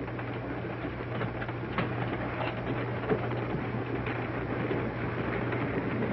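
Passenger train running, heard from inside a railway carriage: a steady low rumble and rattle with a few light clicks.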